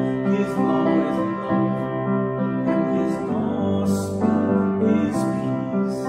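Grand piano playing slow, sustained chords, the notes held and changing about once a second.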